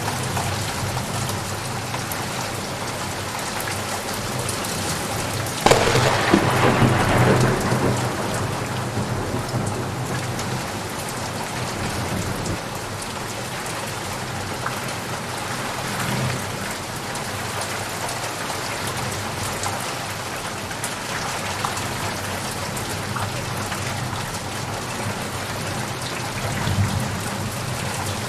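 Steady heavy rain with a sudden thunderclap about six seconds in, which rumbles loudly for a couple of seconds and then dies back into the rain.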